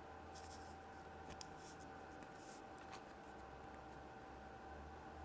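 Faint rustling and light handling noises from small toys and wrappers, with one small click about three seconds in, over a steady electrical hum.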